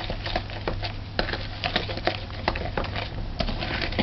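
Cake batter being beaten by hand in a mixing bowl: quick, irregular taps and clicks of the mixing utensil against the bowl as eggs are worked into creamed butter and sugar.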